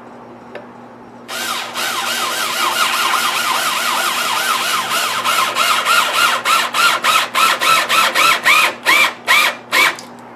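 Power drill driving a self-drilling, self-tapping stainless screw into oak, with a wavering squeal as the screw cuts. It starts about a second in and runs steadily, then goes in short bursts near the end before stopping.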